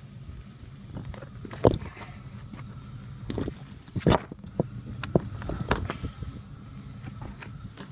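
A vehicle engine idling steadily, with footsteps crunching and scuffing on loose rocky dirt and several sharp knocks over it.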